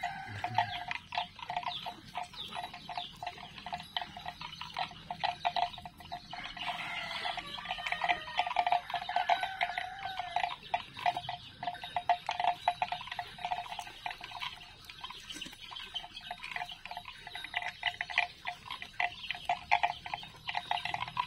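Bali cattle chewing and tearing at cut grass stalks, a dense, irregular run of crisp crunching ticks.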